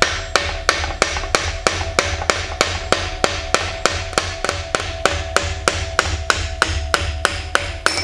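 Lead hammer striking the end of a Triumph Spitfire gearbox input shaft in a rapid, even series of blows, about three a second, driving the shaft out of its ball bearing. The steel rings faintly under the blows.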